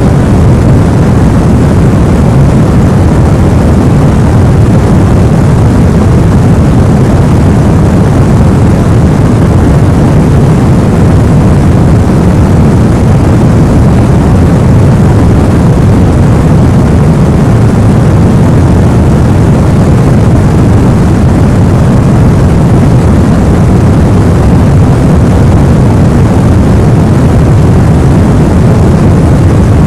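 Steady sleep white noise, deep and rumbling like a plane cabin, loud and unchanging.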